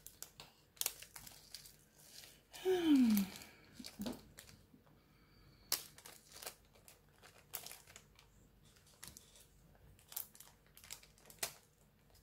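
Plastic bag of diamond-painting resin drills crinkling as it is handled and emptied, with scattered light clicks from the drills and a small clear plastic storage box. About three seconds in comes a brief, louder falling tone.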